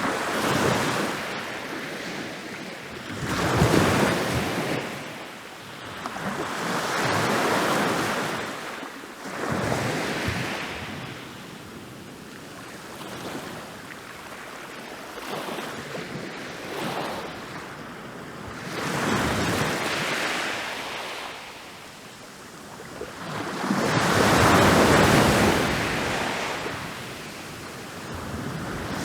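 Ocean waves breaking and rolling onto a beach, each wave a rush of surf that swells and fades over a few seconds, with a strong break about four seconds in and a longer, louder one near the end.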